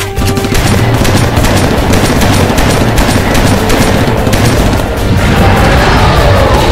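Action-film soundtrack: music under a dense, continuous run of rapid bangs like gunfire and crashes.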